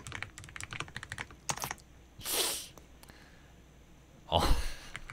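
Fast typing on a mechanical keyboard, a dense run of clacking keystrokes. Two short breathy puffs of noise cut across it, one about halfway and a louder one near the end.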